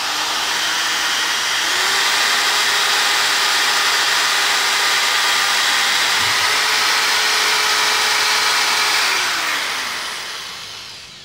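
Bosch GSR 7-14 E 400 W corded drill/driver drilling a hole of about 10 mm into a plastered brick wall without hammer action: a steady motor whine over the grinding of the bit in the masonry. The motor speeds up slightly about a second and a half in and winds down near the end as the drill stops.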